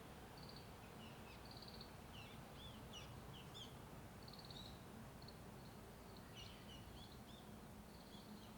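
Several wild birds singing faintly, short repeated trilled notes and quick rising-and-falling chirps, busiest around the second and third seconds and again past the sixth, over a steady low rumble of distant road traffic.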